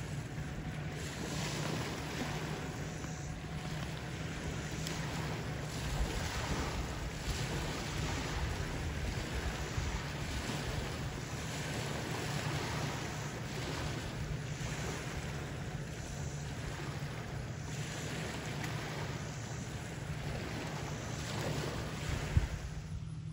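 Small waves washing onto a rocky shore, swelling and fading every second or two, with wind rumbling on the microphone. One sharper splash comes near the end.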